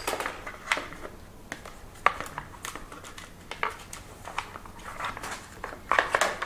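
Hard plastic stone guard being handled and fitted under an e-bike's mid-drive motor, along with a hex key: scattered light clicks, taps and scrapes, with a sharper click about two seconds in and a cluster of knocks near the end.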